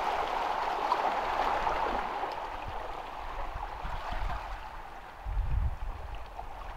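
Small sea waves washing and gurgling against shoreline rocks, a steady splashing wash, with a brief low rumble about five seconds in.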